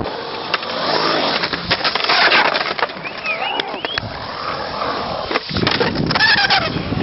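Skateboard wheels rolling and carving across a concrete bowl, with several sharp clacks of the board and trucks along the way.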